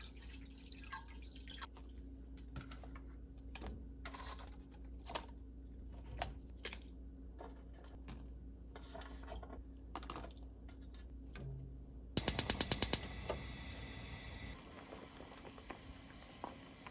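Water poured into a nonstick frying pan, then broth vegetables set into the pan with scattered light knocks and taps, over a steady low hum. A little past twelve seconds in, a gas range's igniter clicks rapidly about eight times, followed by a short hiss.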